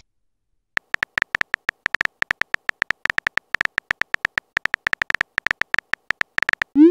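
Texting app's keyboard tap sounds: a rapid run of short clicks with a slight beep to them, about eight a second, as a message is typed out. Right at the end comes a short rising swoop as the message is sent.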